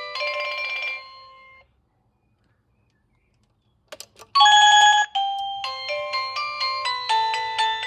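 Electronic doorbell chime playing a melody of stepped electronic notes, which cuts off about a second and a half in. After about two seconds of silence and a few clicks, it starts another tune, opening with a loud held chord.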